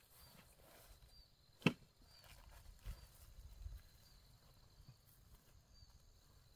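A single sharp click, then soft low thuds of a backpack being dropped onto grass, over faint repeated chirping.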